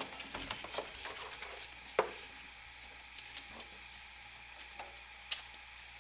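Rubber serpentine belt being fed by hand around the engine's pulleys: faint rustling with scattered light clicks and knocks, and one sharper knock about two seconds in.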